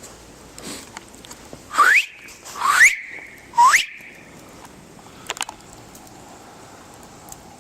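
Three short, loud rising whistles, each sweeping up in pitch, about a second apart: a person whistling to call a dog back.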